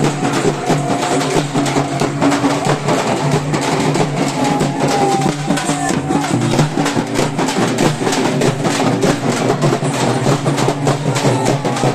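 Several large drums beaten with sticks by a group of procession drummers, playing a fast, steady, dense beat.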